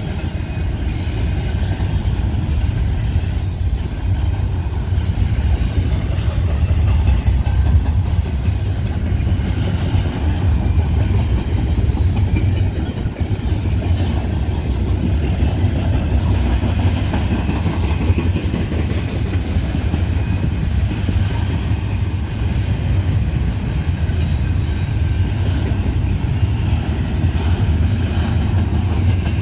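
Double-stack container well cars of a long intermodal freight train rolling steadily past: a continuous low rumble of steel wheels on rail.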